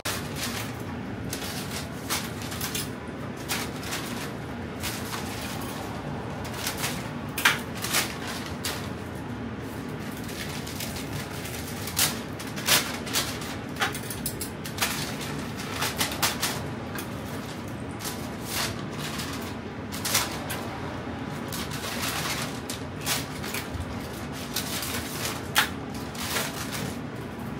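Metal tongs clicking and clinking against a wire cooling rack and stainless steel tray as fried chicken pieces are picked up and packed. The clicks come irregularly over a steady kitchen hum.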